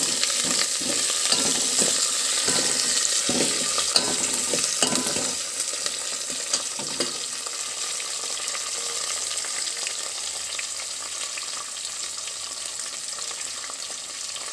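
Chopped onions, curry leaves and dried red chillies sizzling in hot oil in a kadai, a tempering (tadka) being fried. A steel ladle stirs and scrapes them for the first five seconds or so, then the sizzle carries on steadily and a little quieter.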